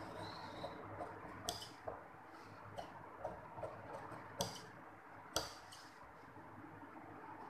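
Scissors snipping through blouse fabric along chalk-marked cutting lines: an irregular run of short, sharp snips, the three loudest about a second and a half, four and a half, and five and a half seconds in, over a faint steady hiss.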